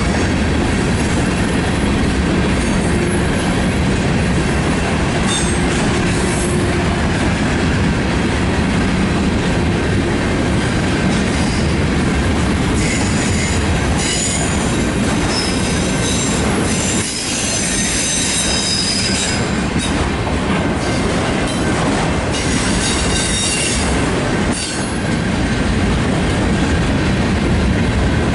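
Freight cars of a Union Pacific mixed manifest train rolling past at about 28 mph, a steady heavy rumble of wheels on rail. High-pitched wheel squeal comes and goes in the second half.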